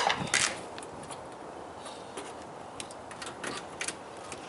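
Irregular small clicks and taps of hands handling wiring and clips, the sharpest two in the first half-second and a quick cluster about three seconds in.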